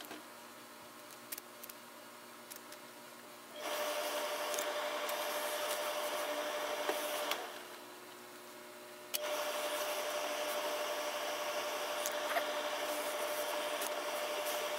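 Tailor's steam pressing equipment running with a steady rushing hiss and hum, starting about four seconds in, stopping for a couple of seconds, then coming back on with a click. Before it starts there are only light ticks of shears and fabric being handled.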